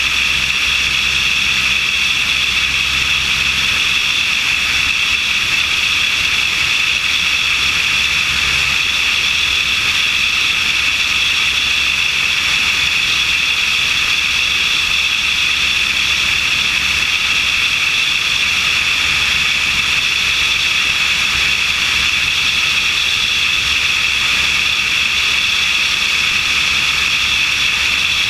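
Steady in-flight noise picked up by a camera mounted on a light aircraft's wing: an unchanging rush of airflow with a low engine and propeller drone underneath.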